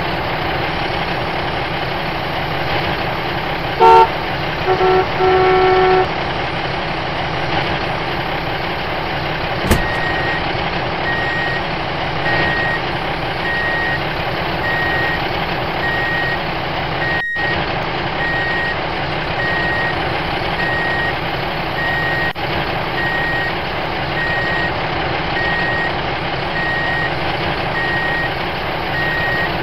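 Truck sound effects laid over a toy dump truck being pushed by hand: a steady diesel truck engine running, a horn tooted twice about four to six seconds in, then a reversing beeper sounding about once a second for the rest of the time.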